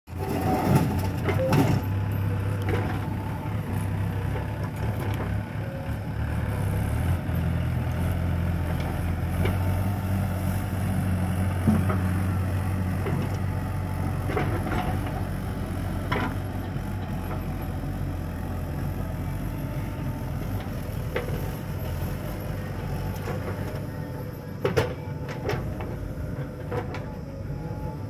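Diesel engines of a JCB 3DX backhoe loader and a tractor running under work, their steady note shifting about a quarter of the way in. Scattered knocks and clatter come as the loader bucket dumps earth into the steel trolley.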